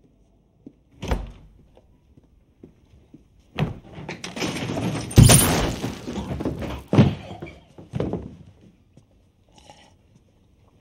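Film sound effects: a heavy thump about a second in, then a few seconds of loud clattering noise with sharp bangs, the loudest about five seconds in and more near seven and eight seconds in.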